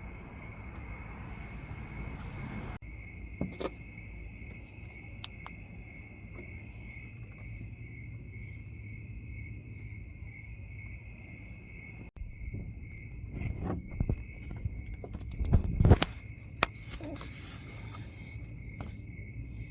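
Scattered sharp knocks and clinks, loudest in a cluster about three-quarters of the way through, over a steady high-pitched pulsing buzz and a low hum.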